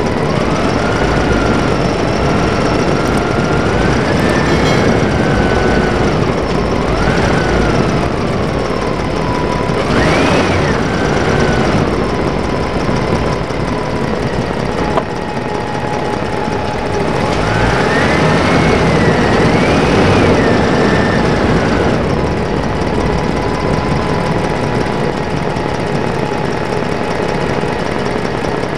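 Vehicle engine running steadily, revving up and back down about ten seconds in and again around eighteen to twenty seconds in.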